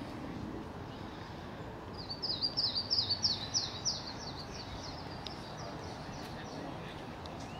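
A songbird singing a quick run of about ten short, high notes, each sweeping downward, about two to four seconds in, over a steady low outdoor background noise.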